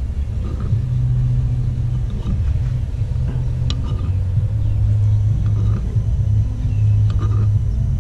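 A steady low rumble with a hum in it. Over it come a few light clicks of a metal spoon against a bowl, the sharpest about halfway through and more near the end.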